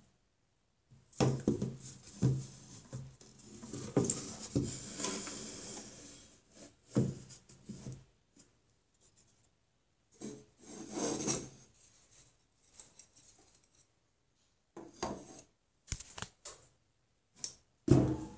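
Close handling noise around a small wooden easel: irregular rubbing and scraping in bursts, then several short knocks near the end.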